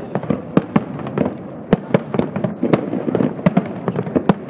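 Display fireworks going off: a rapid, irregular series of sharp bangs from bursting aerial shells, several a second, over a continuous crackle.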